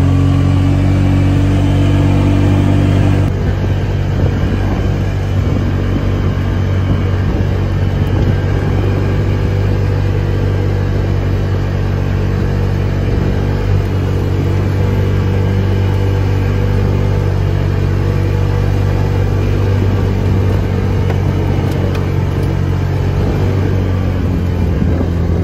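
Side-by-side utility vehicle's engine running at a steady pace while driving along a gravel track, heard from the seat, with a steady low hum and road noise beneath it.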